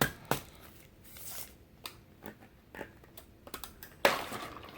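Fast-food takeout bag and drink cup being handled: a few light clicks and knocks, then a loud paper rustle about four seconds in.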